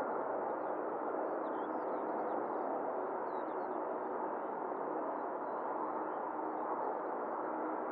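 Boeing 777-300ER's GE90 turbofan engines running at taxi power: a steady, even jet roar with a faint hum, and small birds chirping faintly over it.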